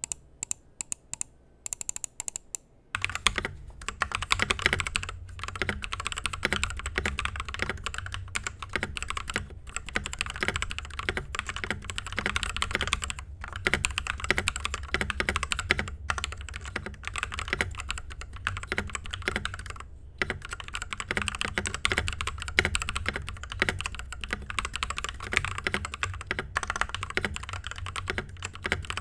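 TM680 65% mechanical keyboard with lubed Akko CS Matcha Green linear switches, lubed stabilizers, sound-dampening foam and XDA profile keycaps, being typed on: a few separate key presses, then about three seconds in a fast, continuous stream of keystrokes with a deep thud under each click.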